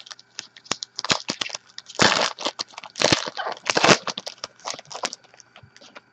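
Trading cards being handled and flipped through by hand: a run of short clicks and papery swishes, with louder swishes about two, three and four seconds in, stopping about five seconds in.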